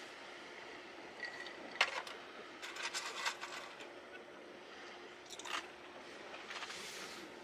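Scattered scraping and rustling handling noises in a few short bursts, over steady low background hiss.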